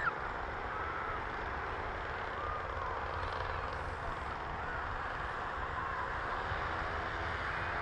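Paramotor engine droning steadily in the distance as the aircraft flies over, its pitch drifting slowly, with wind rumbling on the microphone.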